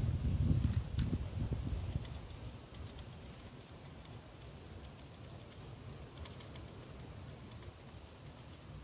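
Wind buffeting the microphone in the first couple of seconds, then a scatter of light, irregular clicks from fishing tackle being handled.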